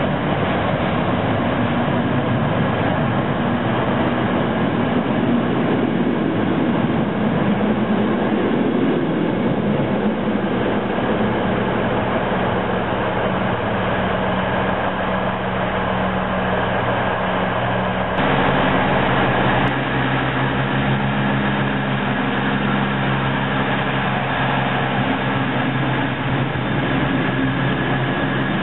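Passenger trains at a station platform: a double-deck train moving out alongside, then another train running in, with a steady low hum over rushing rail noise. The sound changes abruptly about two-thirds of the way through.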